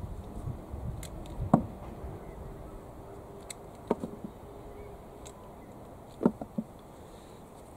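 Harvesting noise: three short clusters of sharp knocks and clicks, the loudest about a second and a half in, as tomato trusses are snipped with secateurs and dropped into a plastic wheelbarrow.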